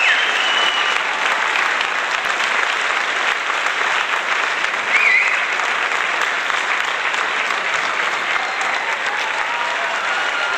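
Sustained applause from a crowd, a dense and steady clapping, with a couple of brief high-pitched calls cutting through, one at the start and one about five seconds in.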